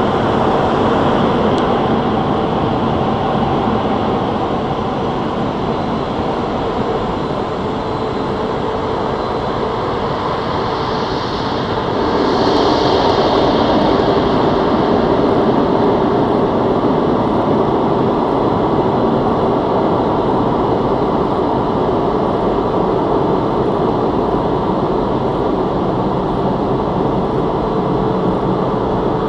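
Touchless automatic car wash machinery running through its cycle: a loud, steady rushing noise that gets louder about twelve seconds in.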